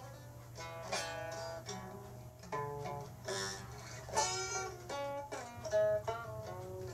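Guitar playing a slow melody of single plucked notes, each ringing on before the next, with a harder-picked note about four seconds in, over a steady low hum.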